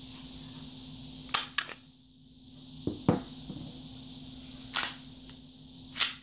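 Smith & Wesson M&P45 Shield pistol being handled during unloading and takedown: sharp metallic clicks of the magazine and slide, two about a second in and two more near the end, with a duller double knock about three seconds in as a part is set down on the countertop.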